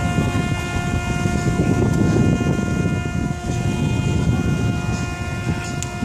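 Ship's horn sounding one long, steady blast, a single held note with overtones, over a low, uneven rushing noise.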